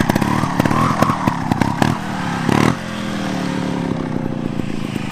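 Vertigo 300cc two-stroke single-cylinder trials bike engine on the throttle during a wheelie, with a rapid, uneven popping through the first two or three seconds, then settling into a steadier note that sinks a little in pitch as the bike pulls away.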